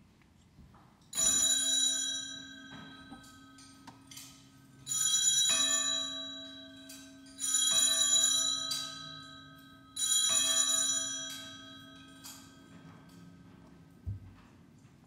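Hand-held altar bells (Sanctus bells) rung four times, each a bright, many-toned ring fading over about two seconds, the rings roughly two and a half seconds apart. They mark the elevation at the consecration.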